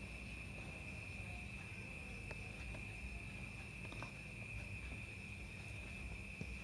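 A steady, unbroken high trill of crickets, with a low hum underneath and a few faint taps of a felt-tip marker on paper.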